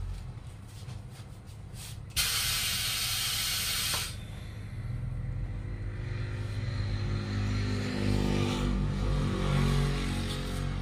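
A sudden loud hiss of compressed air lasting about two seconds, cut off just as suddenly. After it comes a low engine rumble, rising in pitch and growing louder toward the end.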